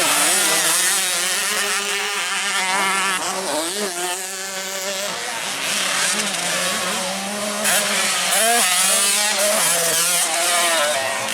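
Several racing dirt-bike engines running hard together, their pitch rising and falling as the riders open and close the throttle and shift gears.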